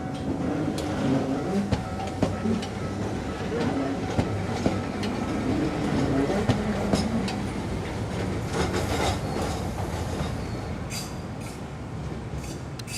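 Tokyu Setagaya Line 300 series tram running past over points and a level-crossing track, its wheels clicking irregularly over the rail joints. The running sound is loudest mid-way and fades toward the end.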